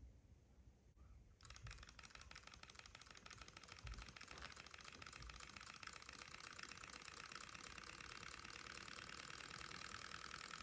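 Alcohol-burner-heated model Stirling engine running, its crank and rod linkage making a rapid, even ticking clatter. The clatter starts about a second and a half in and grows slightly louder as the flywheel spins up.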